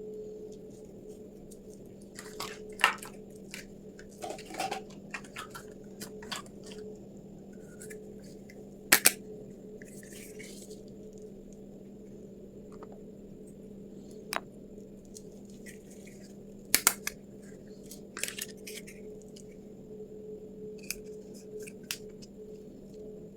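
Small plastic toy kitchen pieces being handled and set down, giving scattered sharp clicks and taps, two of them double clicks, along with short bursts of crinkling packaging. A steady low hum runs underneath.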